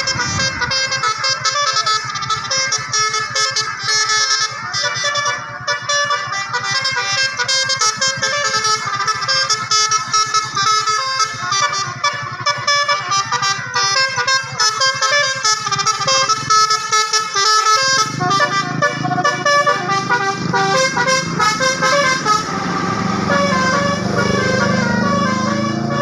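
Bus's Basuri telolet multi-tone air horn playing a quick melody of many short notes, almost without pause. A lower, steadier sound joins about two-thirds of the way through.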